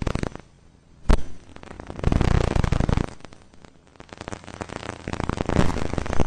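Crackling, static-like space sound clip: an irregular hiss with scattered clicks, one sharp crack about a second in, and noisy swells that rise and fall.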